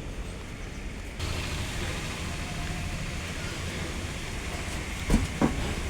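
Steady rushing noise with a low rumble, getting louder about a second in, and two sharp knocks close together near the end.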